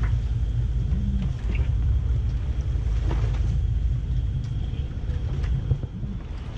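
Steady low rumble aboard a sailing yacht under way in a strong wind, with a few faint ticks over it.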